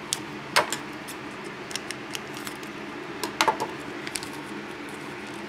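Small plastic toy pieces and packaging being handled: a scattering of light, sharp clicks and rattles over a faint steady background hiss.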